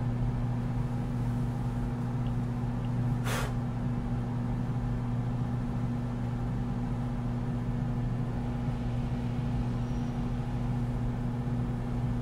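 A steady low electrical hum runs throughout, with a single short rustle or scrape about three seconds in.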